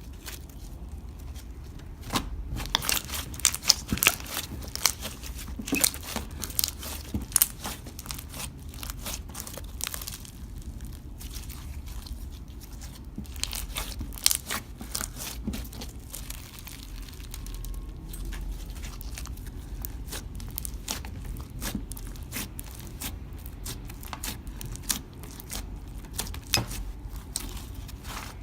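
Slime being squished and stretched by hand, giving irregular sticky pops and crackles, thickest a few seconds in and sparser afterwards.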